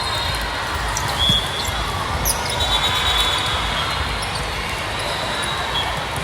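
Gym sounds during a volleyball game: a ball hitting and bouncing on the court and sneakers squeaking briefly on the hardwood floor, over a steady hum of hall noise.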